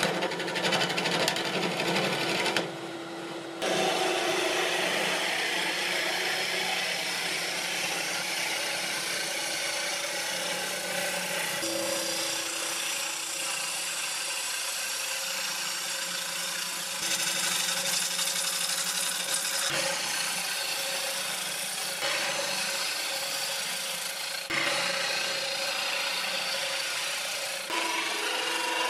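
A wood lathe spins a wooden platter blank while a gouge cuts across its face: a continuous rough cutting noise over the steady hum of the lathe. The sound changes abruptly several times, with a brief quieter stretch about three seconds in.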